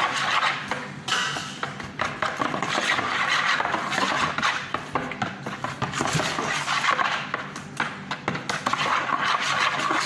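A spoon scraping and stirring rice in a plastic bowl: a continuous rustling scrape of grains against plastic, dotted with small clicks.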